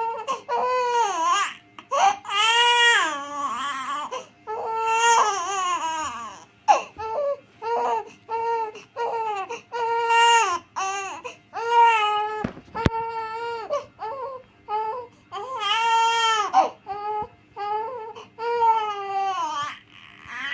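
A two-month-old baby crying in repeated wails, some short and some drawn out for a second or two, with brief pauses for breath between them.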